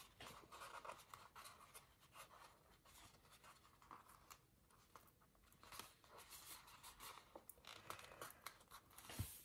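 Faint paper crinkling and small irregular clicks from a sticker sheet being handled as a strip of square stickers is peeled off its backing, with a slightly louder click near the end.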